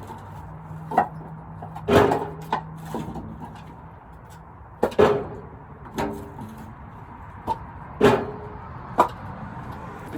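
Split firewood logs knocking against one another as they are tossed onto a pile, about nine hollow wooden knocks at irregular intervals, some ringing briefly. A steady low hum runs underneath.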